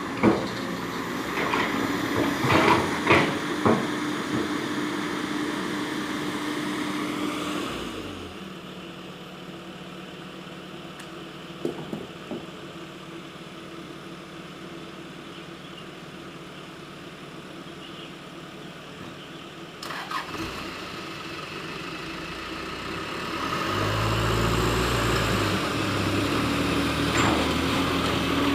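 Diesel engines of the sand-mine excavator and trucks running steadily, with several sharp knocks in the first few seconds. The sound eases off about eight seconds in and grows louder again, with a deeper rumble, near the end.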